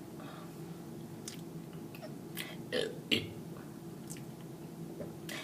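A person burping briefly about three seconds in, over a steady low hum, with a few faint clicks.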